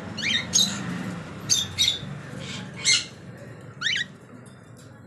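Albino cockatiel giving short, sharp squawking calls, about six spread unevenly, with a longer gap near the end.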